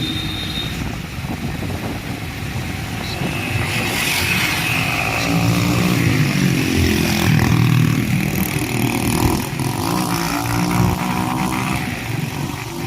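A motor vehicle engine running, its pitch rising and falling as it speeds up and slows.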